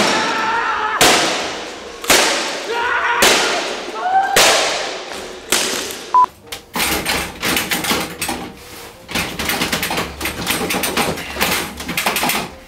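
Acoustic guitar smashed against a concrete floor, about six heavy crashes roughly a second apart, with the strings and body ringing after each blow. After that comes a quick, dense run of clattering and rattling.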